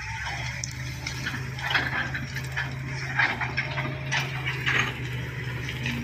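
Diesel engines of a SANY crawler excavator and a Shantui SD16 bulldozer running steadily while clearing brush, with irregular bursts of crackling and clatter over the engine hum.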